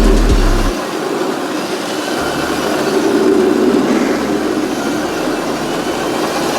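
Electric Crazy Cart drift kart rolling and sliding over pavement: a steady, rough rumble of its small wheels.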